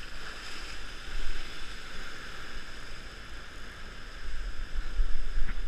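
Sea surf washing up over a weed-covered rock ledge, growing louder in the last second and a half as a swell surges across the rocks. Wind buffets the microphone with a low rumble throughout.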